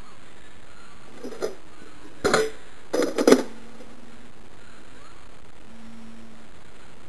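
Plastic clicks and clacks of a Nerf blaster being reloaded: a light click about a second in, then two louder clattering clusters around two and three seconds in, over a steady hiss.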